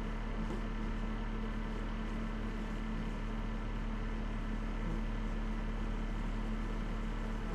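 Dacia Solenza car engine running with a steady drone that holds one pitch throughout.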